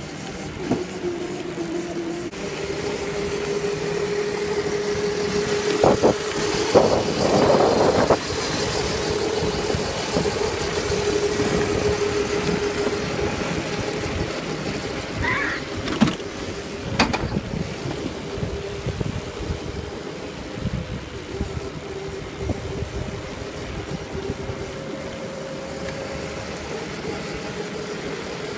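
Small electric ride-on vehicle running at speed on pavement: a steady, slightly wavering motor whine over tyre and wind noise, with a louder noisy stretch about six to eight seconds in and a couple of sharp knocks around sixteen and seventeen seconds in.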